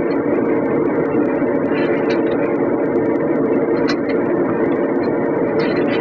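Steady drone of a running machine, with scattered light clicks and taps of a tire spoon against the wheel rim as a mower tire is worked onto it by hand.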